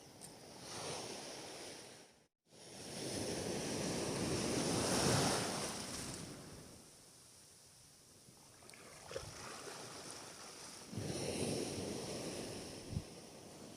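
Waves washing onto the shore, swelling and fading in two long surges, with a brief complete dropout about two seconds in.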